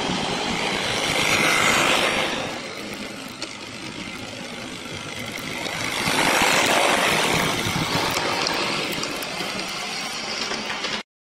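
Model train running along the layout track: a whirring, rattling run of motor and wheels on rail. It swells twice as the train passes close, then cuts off abruptly near the end.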